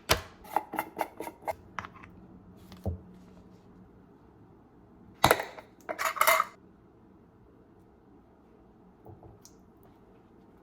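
A run of light clicks and knocks of small hard objects being handled, then a louder clatter about five seconds in, like dishes or utensils being set down.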